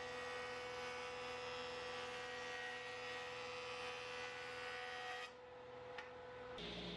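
Benchtop jointer running with a steady hum and hiss as a white oak board is pushed across its cutterhead; the high hiss falls away about five seconds in.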